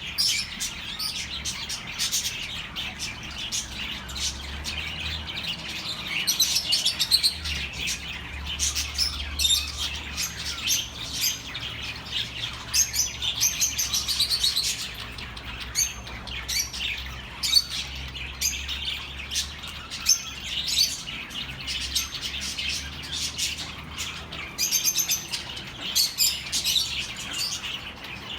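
Budgerigars chattering: a steady stream of short chirps and warbles, with a faint low hum beneath.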